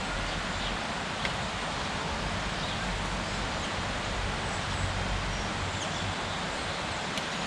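Steady background hiss with a few faint clicks of tools working on a diesel engine's rocker gear while the tappet clearances are set with spanner and feeler gauge.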